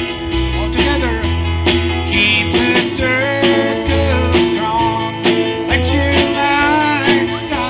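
Live gospel band playing in a country style: strummed acoustic guitar over bass and drums, with a melody line bending over the top.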